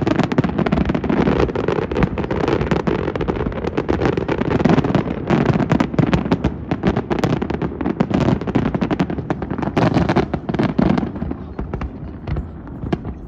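Aerial fireworks going off in a dense barrage of rapid bangs and crackling over a continuous low rumble, thinning to scattered pops about eleven seconds in.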